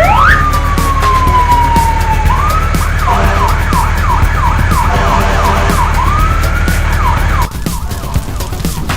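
Cartoon siren sound effect: a long falling tone, then a fast repeating wail of about three sweeps a second, over a steady backing track. The siren and the low backing drop out about seven and a half seconds in.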